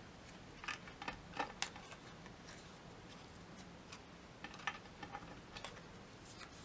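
Cardstock being handled and folded by hand: scattered light clicks and soft crackles as the flaps of cut card pieces are folded back.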